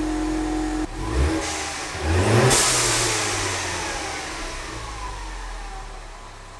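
Ford EcoBoost car engine running, then revving up about two seconds in as the car pulls away, its sound fading off gradually.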